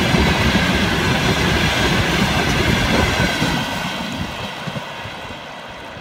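Loaded tank wagons of a long freight train rolling past on the rails. The sound is loud, then fades steadily after about three and a half seconds as the last wagon goes by and the train moves away.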